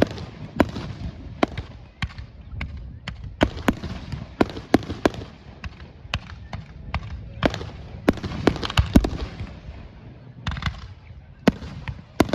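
Fireworks display: a rapid, irregular series of sharp bangs and crackles, with a deep boom about nine seconds in.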